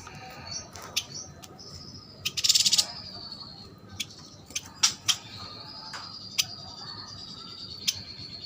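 Yuhinas calling: scattered sharp chip notes and one short buzzy rattling call about two and a half seconds in, over a thin, steady high-pitched tone.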